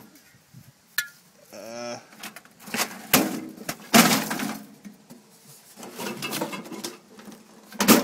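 Knocks and clinks of metal and plastic as a toaster oven's crumb tray and the items inside it are handled and pulled out, with the loudest knock about four seconds in and another near the end.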